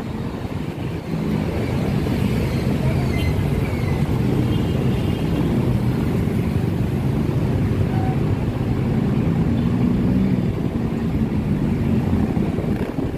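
City street traffic: cars and motorcycles driving past with a steady low engine rumble.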